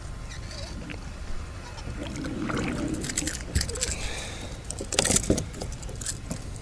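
Clicks and light jangling rattles of fishing tackle being handled on a kayak, thickest and loudest about five seconds in, over a steady low rumble.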